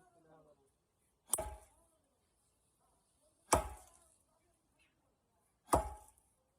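Three heavy chopping blows struck into wood, about two seconds apart, each with a brief ringing after the hit.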